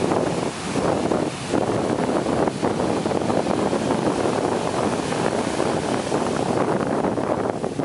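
Ocean surf breaking and washing up the beach, with wind buffeting the microphone in gusts.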